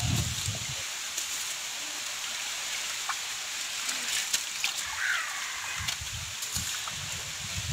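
Large pot of biryani cooking water and masala boiling over a wood fire: a steady bubbling hiss with scattered small pops and crackles.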